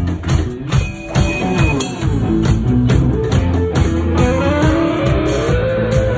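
Live punk rock band playing loud electric guitars, bass guitar and drum kit, with a long note that slides up in pitch and holds in the second half.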